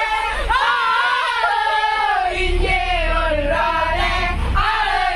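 A group of people singing a Christmas carol together, several voices at once. A low rumble sits underneath through the middle few seconds.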